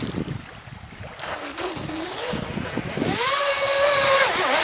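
Brushless electric motor of an RC racing catamaran whining at speed. The pitch wavers, then climbs sharply about three seconds in and holds a steady high whine before falling away near the end. Wind and water noise run underneath.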